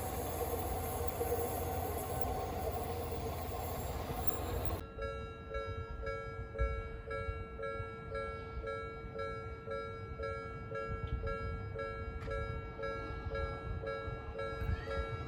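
A train running past on the tracks, then, after an abrupt cut, a Japanese level crossing's warning bell ringing in an even, repeating beat of about one and a half strikes a second.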